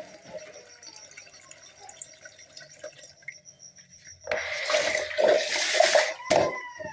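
Sink tap water, quiet at first with faint small drips and clinks. About four seconds in, the tap runs into the basin for about two seconds, then stops with a sharp knock.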